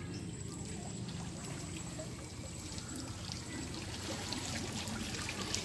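Steady trickling and running water in a flooded creek, with small splashes and drips.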